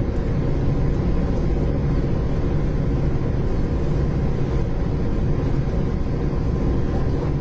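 Steady low rumble of an engine running, even and unbroken.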